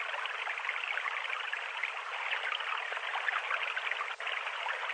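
Steady trickling, splashing water with a fine crackle, briefly dipping about four seconds in.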